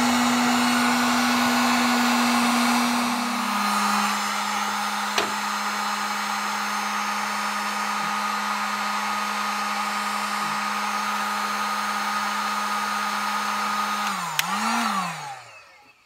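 Electric heat gun running steadily, a motor hum over the rush of blowing air, its pitch dropping slightly about three seconds in. Near the end it clicks and the motor winds down as it is switched off.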